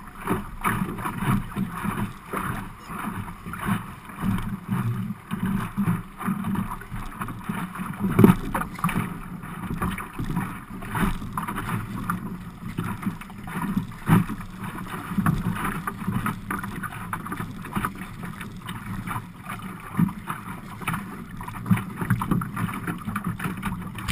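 Water splashing and slapping against the hull of an Optimist sailing dinghy under way in choppy water: a steady rush broken by many irregular knocks and splashes.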